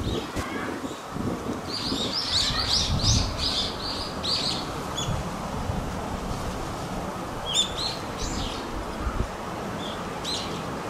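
Songbird chirping: a quick run of about eight high, falling chirps a couple of seconds in, then a few scattered chirps later, over a low outdoor rumble.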